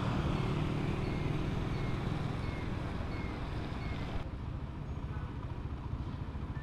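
Motorcycle engine running as the bike rides on a wet road, under a steady hiss of wind and wet tyres. About four seconds in the hiss drops away suddenly and the engine runs more quietly at low speed.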